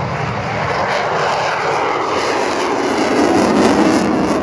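F-16 Fighting Falcon's Pratt & Whitney F100 turbofan running in afterburner as the jet passes: a loud jet roar that falls in pitch as it goes by and is loudest about three and a half seconds in.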